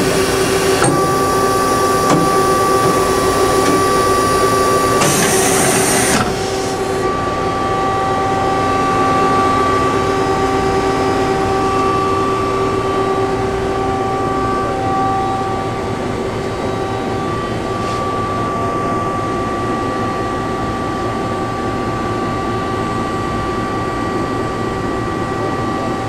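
A Tsugami MA-3H CNC horizontal machining center going through an automatic pallet change: a steady machine hum with several steady tones throughout. A hiss lasting about a second comes about five seconds in.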